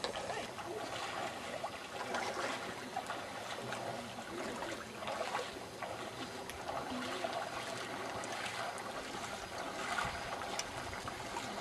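Moving water: a steady rushing with irregular splashes and swells, like water splashing in the shallows of a mountain lake.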